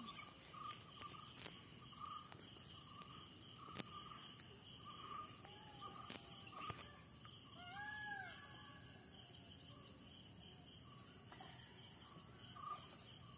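Faint outdoor ambience: insects drone steadily at a high pitch while birds chirp repeatedly, with a few short arched calls around the middle. A handful of sharp clicks break in now and then.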